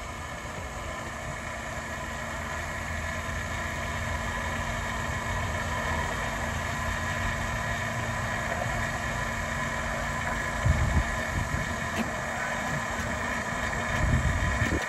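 Fuel dispenser pump running steadily while race fuel is pumped into jugs: a low hum with thin whining tones above it. The hum cuts off about ten and a half seconds in, followed by a couple of low bumps.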